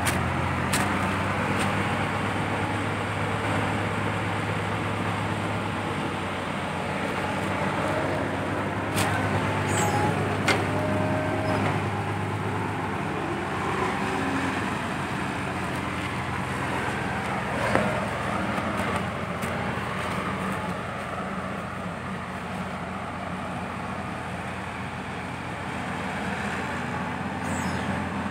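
Heavy diesel engines of earthmoving machinery running steadily, their note dropping about twelve seconds in, with a few sharp knocks.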